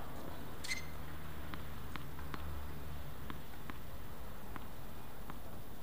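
Faint, light ticks of a tennis ball bounced on a hard court, several in a row, over a steady low background hum. A sharper click with a brief ring comes about a second in.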